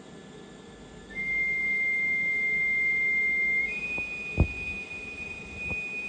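A ventilator's electronic tone: a steady pure tone starts about a second in and steps up once to a higher pitch about two-thirds of the way through. A few sharp clicks fall in the second half, one of them loud.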